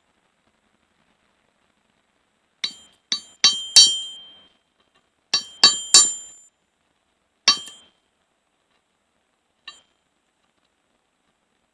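Hammer blows on a steel punch driving a rivet out of a chainsaw chain drive link set on a piece of railroad track, each blow a sharp, ringing metallic clink. A quick run of four blows, then three, then a single one, and a faint tap near the end.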